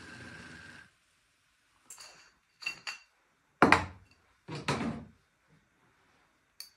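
Stainless cream siphon, used for rapid infusion, hissing as pressurised gas and liquid spray out of its nozzle, cutting off about a second in. Then come a few metal knocks and clinks as the siphon head is unscrewed and set down on the counter, the loudest knock near the middle.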